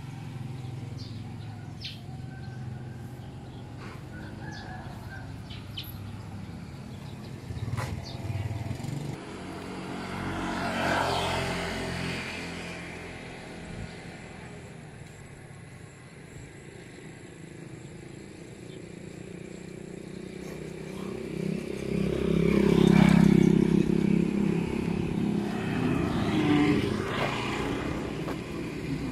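Motorcycles passing along the street: their engines swell up and fade away three times, the loudest pass about 23 seconds in. Birds chirp in the first few seconds.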